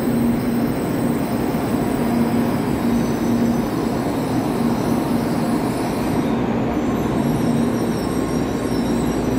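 N700-series Shinkansen train rolling slowly alongside the platform: a steady rumble of wheels and running gear, with a low hum that comes and goes.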